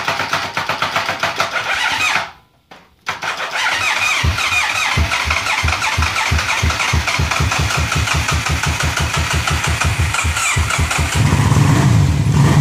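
1985 Suzuki Madura motorcycle's electric starter cranking the engine in a rhythmic chug. It stops briefly, then cranks again for about eight seconds before the engine catches and runs near the end. The long crank reflects the bike's hard-starting problem.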